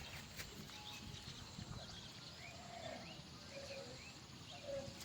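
Faint outdoor ambience with birds calling: a string of short rising chirps, a few lower calls in the second half, and a couple of soft knocks.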